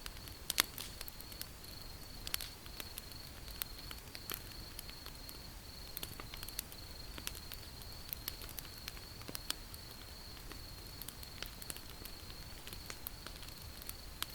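Wood fire crackling: irregular sharp pops and snaps over a low hiss, the loudest pop about half a second in. A steady high-pitched trill runs behind it.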